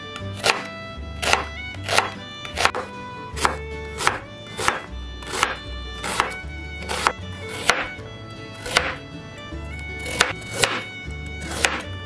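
Chef's knife chopping onion on a bamboo cutting board: sharp strokes hitting the board about one and a half times a second, over background music with a steady bass line.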